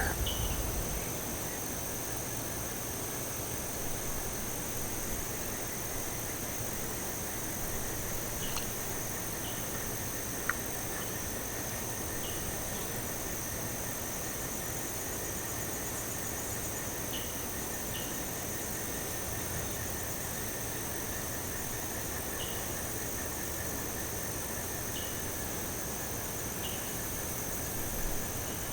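Steady trilling of insects in several high layers, with a short high chirp every few seconds and a single sharp click about ten seconds in.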